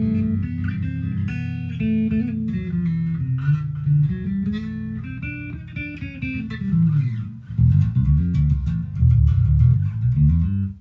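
Squier Affinity six-string bass played with the fingers: a melodic run of notes, a slide down in pitch about two-thirds of the way through, then louder low notes toward the end.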